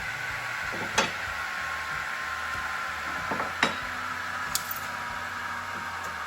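A few sharp knocks of boards being handled, one about a second in and two or three together a little past the middle, over a steady hiss with a faint whine slowly falling in pitch.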